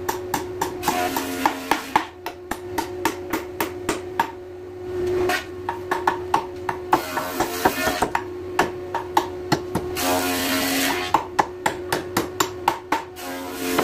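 A hand hammer striking a wooden door frame in quick runs of sharp taps, about three to four blows a second, with short pauses between runs.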